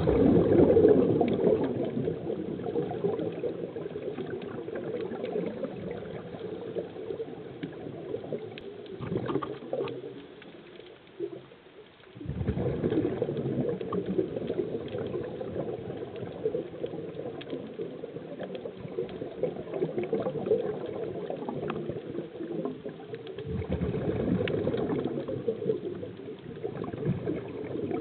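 Underwater bubbling from scuba divers' exhaled air: a dense gurgling hiss that thins out and falls away for a couple of seconds around the ten-second mark, then comes back.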